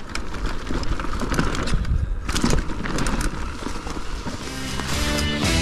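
Mountain bike (Commencal Meta) riding fast down a rough dirt trail: tyres rolling on dirt, with frequent knocks and rattles as it hits roots and bumps, and wind on the microphone. Music comes in about four and a half seconds in.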